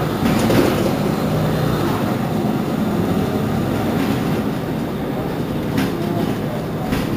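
Mercedes-Benz Citaro C2 city bus standing at a stop with its engine idling, a steady low rumble with a hum. A couple of faint clicks come near the end.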